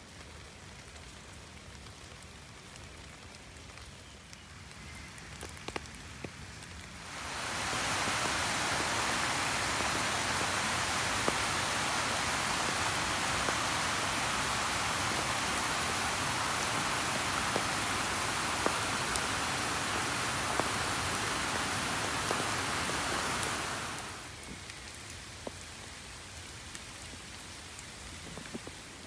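Steady rain falling on wet ground and foliage, with scattered drip ticks. For a long stretch in the middle a much louder, even rush of water comes in: a small forest stream spilling over rocks. It starts and stops abruptly.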